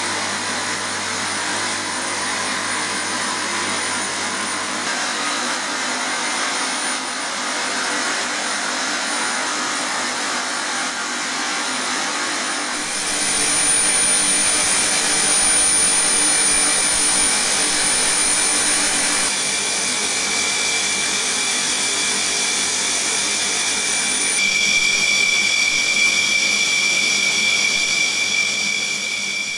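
Dassault Rafale's twin Snecma M88 turbofans running at idle: a steady jet whine with a thin high whistle, its character shifting abruptly a few times. In the last few seconds a stronger set of whistling tones takes over.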